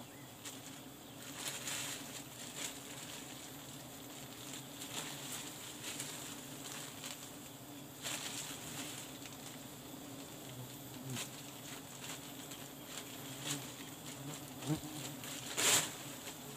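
A swarm of honeybees buzzing in a steady hum around their exposed comb as it is bagged, with scattered crackling rustles from the plastic bag and leaves. The loudest rustle comes near the end.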